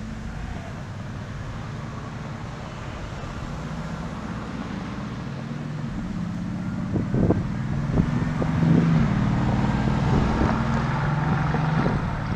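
Steady low rumble of wind on the microphone and road traffic while riding along a roadside sidewalk. It grows louder in the second half, with a few brief knocks about seven seconds in.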